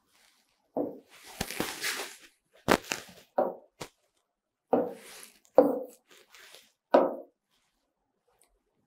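A man's brief, low murmurs, several short ones with pauses between, over a breathy rustle about a second in, and a few light clicks of fingertip taps on a touchscreen's colour menu.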